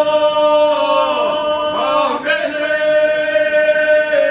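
A group of men and women singing a traditional folk song without instruments, holding long notes, with a brief break for breath about two seconds in.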